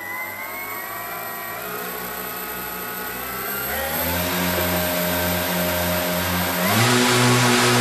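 Twin Hobby Lobby Atlas 5030/16 brushless outrunner motors spinning 18x12 APC propellers on a static run-up, the throttle opened in stages. The motor whine and propeller drone creep up in pitch, then step up sharply in pitch and loudness about four seconds in and again near seven seconds.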